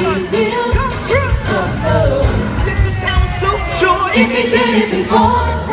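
Live gospel music: a band with drums playing under lead and backing singers, voices sliding up and down over a steady beat.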